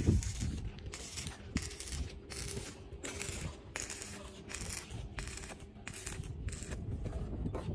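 Electric arc welding on a steel roof truss joint: the arc crackles in short bursts, about a dozen, as the weld is laid in quick stitches.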